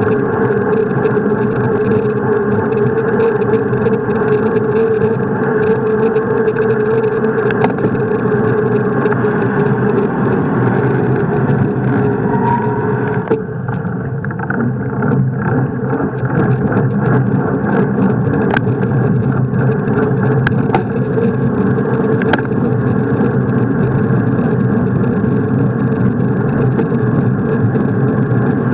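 Steady rushing of wind and road noise from a bicycle ridden fast on asphalt, with frequent small rattles and clicks. The noise dips briefly about halfway.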